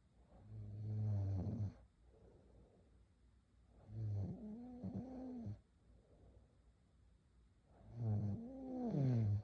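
A girl snoring: three drawn-out snores about four seconds apart, each wavering in pitch.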